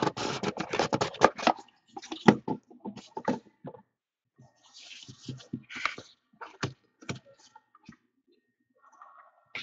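A cardboard card box being slid open and its foam inserts pulled out: a quick run of scrapes and taps in the first second and a half, then scattered scrapes and taps.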